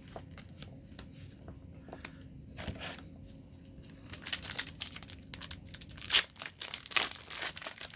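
Foil booster pack wrapper being torn open and crinkled: a crackly, papery ripping that starts about halfway through, after a few soft clicks.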